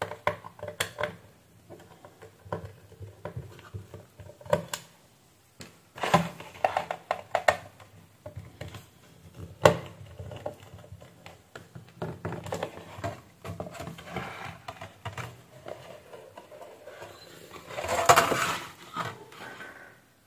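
Irregular clicks, taps and scraping of a screwdriver and hard plastic parts being handled as an LED ceiling light is taken apart. A longer, louder scrape comes near the end.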